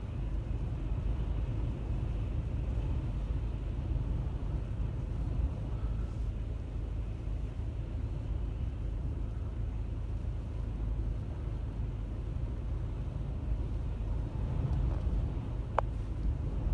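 A steady low rumble, with a single faint click near the end.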